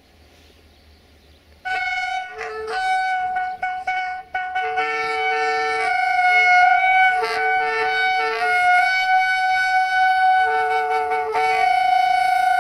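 Multi-tone air horn of the CFR GM-class diesel locomotive 65-1013-5 sounding about two seconds in as it approaches: a string of blasts with shifting chords, ending in one long held blast. Before the horn, only a faint low engine rumble.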